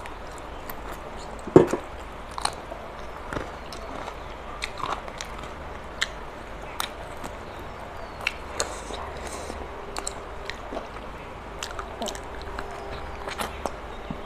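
Close-miked chewing and biting of chicken curry eaten by hand, with many short wet mouth clicks and smacks and one sharp snap about a second and a half in.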